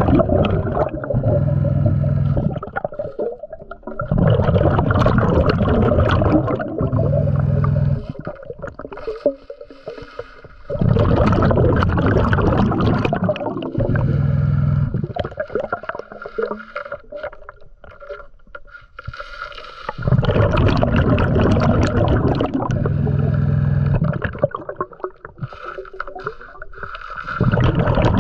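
A scuba diver breathing through a regulator underwater: loud bubbling exhalations with a low rumble, alternating with quieter inhalations, in slow uneven cycles about every four to seven seconds.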